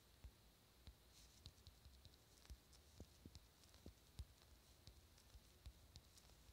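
Near silence with faint, irregular clicks, a couple a second, of fingers tapping out a message on a phone's touchscreen keyboard.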